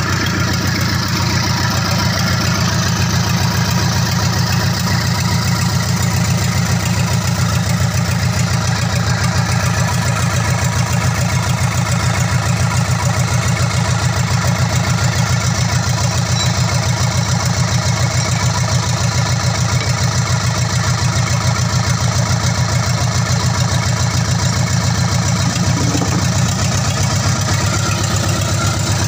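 An engine idling steadily, with a fast, even low pulse that does not change.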